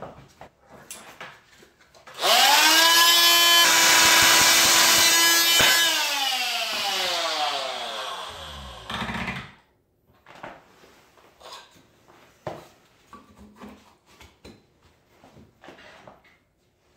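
Oscillating multi-tool cutting a thin wooden board: it spins up to a steady high buzz for about three seconds, then its pitch falls away over about four seconds until it stops. Afterwards, light knocks and rubbing as the cut wood piece is pressed into the wall opening.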